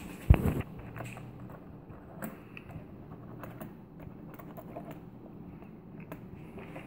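Ballpoint pen scribbling and tapping on a toy's cardboard-and-plastic blister pack: faint, irregular small clicks and scratches, with one sharp thump near the start.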